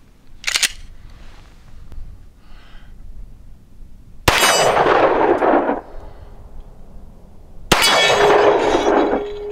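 Glock 9mm pistol: a sharp click of the slide being worked about half a second in, then two shots about three and a half seconds apart, each trailing off for over a second. After the second shot a steel plate target rings with a steady tone: a hit.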